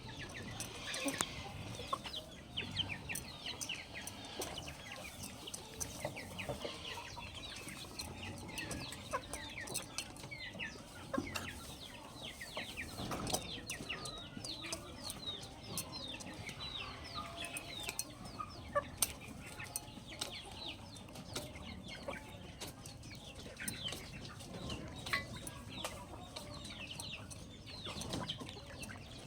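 Chickens: adult hens clucking while baby chicks keep up a constant, busy peeping of short high chirps, with scattered sharp clicks among them.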